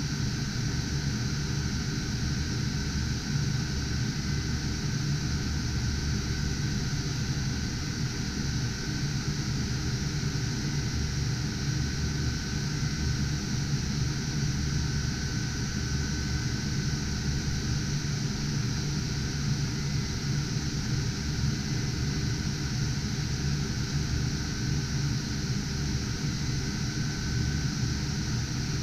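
Cooling fans of a twelve-GPU GTX 1080 Ti mining rig running steadily: a constant rushing noise with a few faint, steady high tones in it.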